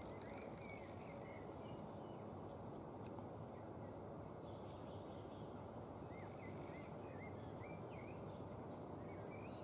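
Quiet rural ambience: a steady low hiss with many small bird chirps scattered throughout. No deer bark is heard.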